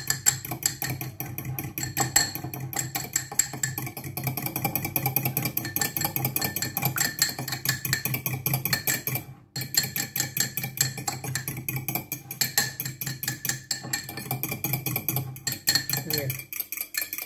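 Metal fork whisking a vinaigrette in a small ceramic bowl: rapid, continuous clicking of the tines against the bowl, with a brief pause about halfway through.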